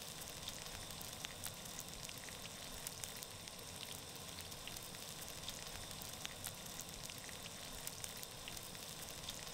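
Bacon frying on a hot steel camp griddle: a steady sizzle with frequent small pops and crackles of spattering fat.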